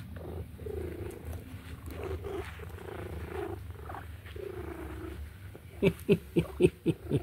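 Domestic cat purring steadily close to the microphone, the purr swelling and fading with each breath. Near the end comes a quick series of sharp rustling sounds, louder than the purr.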